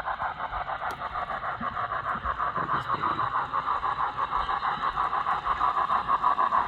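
Sound decoder of an N-scale model steam locomotive, chuffing in quick, even beats, several a second, through the model's small onboard speaker.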